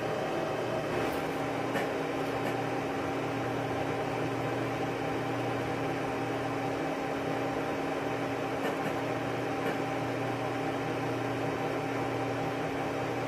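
Steady machine hum with fan-like hiss, holding a few fixed low tones, with a few faint clicks.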